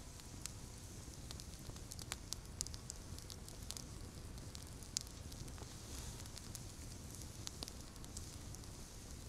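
Small teepee-style wood campfire crackling, with irregular sharp pops scattered through and one louder pop about five seconds in.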